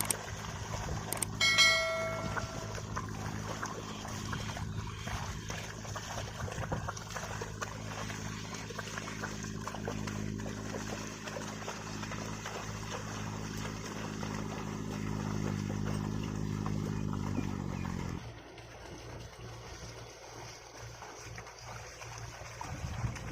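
A steady low machine hum, like an engine running, that rises slightly in pitch and then cuts off suddenly about eighteen seconds in. A brief high-pitched note sounds near the start.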